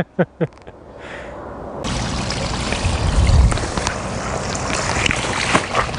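Water poured from a plastic bucket into a carp cradle, wetting the unhooking mat: a steady splashing pour that sets in suddenly about two seconds in.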